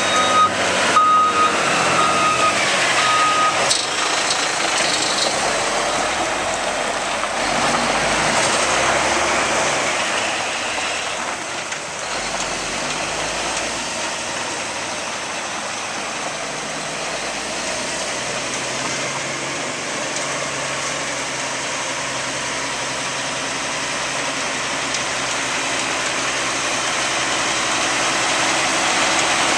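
Concrete mixer truck's Cat C-10 diesel running, with its reversing alarm beeping about once a second for the first few seconds, then the engine running on steadily.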